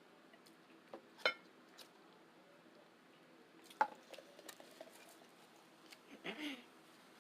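Close-up eating sounds from a taco meal: a few sharp clicks and taps, the loudest about a second in, with soft wet mouth noises between them and a short louder sound about six seconds in.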